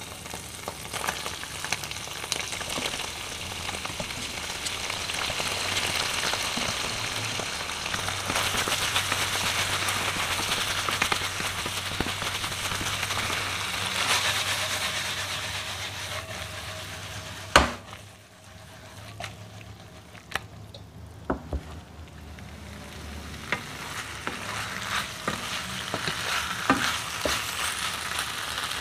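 Boiled garganelli pasta sizzling in a hot non-stick frying pan of meat sauce as it is stirred and tossed. About two-thirds of the way through there is one sharp knock. The sizzle then dips, with a few utensil clicks on the pan, and builds again.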